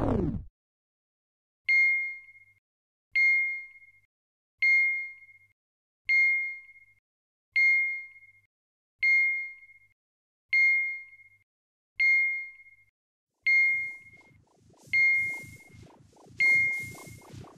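A single high ding repeating at an even pace, about once every second and a half, each one struck sharply and fading out quickly, eleven times in all. Loud music cuts off right at the start. Near the end a fast-pulsing electronic buzz and hissy bursts fade in underneath.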